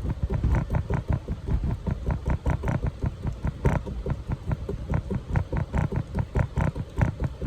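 Dig-kit chisel being struck quickly and repeatedly into a dry plaster excavation block, about four or five sharp taps a second, each with a dull thud beneath it.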